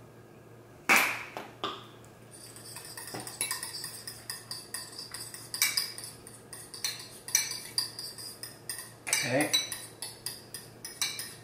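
A utensil stirring a thick sour cream sauce in a bowl, clinking and scraping against the bowl in a quick, irregular run of clicks. A single sharp knock comes about a second in, before the stirring starts.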